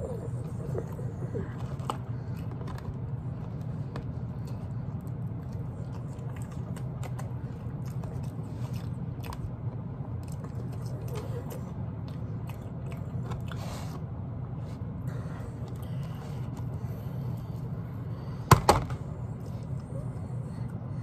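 A person chewing and handling barbecue takeout food, with small clicks and scrapes from clear plastic containers over a steady low hum. One sharp knock, the loudest sound, comes about eighteen and a half seconds in.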